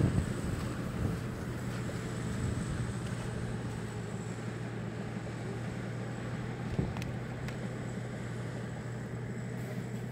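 Combine harvester's engine running steadily, a low even hum, with wind on the microphone and rice straw rustling, loudest near the start.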